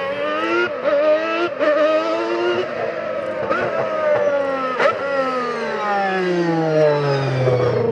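The 1991 McLaren Honda MP4/6 Formula 1 car's 3.5-litre Honda V12 running at high revs, its exhaust headers joined by unequal-length secondary pipes. Quick upshifts come in the first few seconds, then the pitch falls steadily over the last three seconds.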